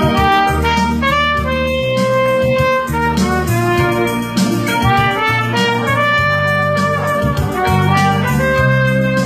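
A trumpet playing a slow melody over an electronic keyboard accompaniment with held bass notes that change every second or so.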